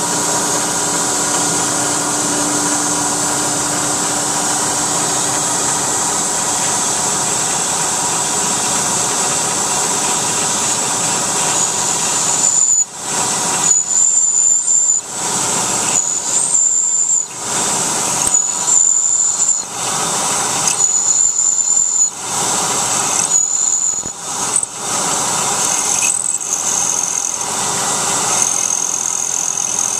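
CNC milling machine spindle running under a steady hiss of flood coolant spray. From about 12 s in, a twist drill cuts into an aluminum bar again and again, each cut giving a high-pitched squeal of about a second, some seven times.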